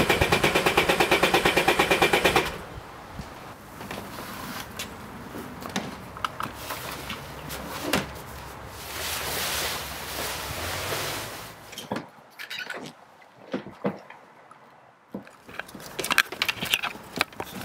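A fast, loud, evenly pulsing rattle for the first couple of seconds. Then the rustle and swish of a fabric cover being dragged off a jet ski. After that, scattered clicks and knocks from a hand working at the fittings and hoses in the jet ski's engine compartment.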